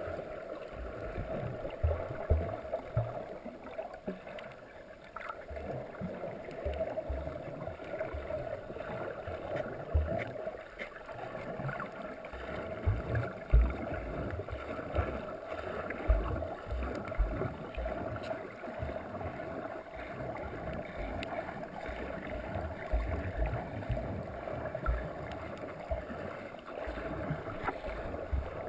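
Underwater ambience picked up by a submerged camera in its waterproof housing: muffled water noise with a steady hum and many irregular low thumps.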